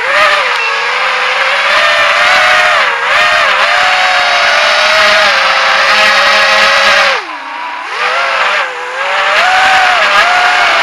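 GEPRC AX-5 racing quadcopter's brushless motors and propellers whining under throttle, the pitch wavering up and down with each throttle change. About seven seconds in the throttle is chopped, the whine drops low for a second, then climbs again.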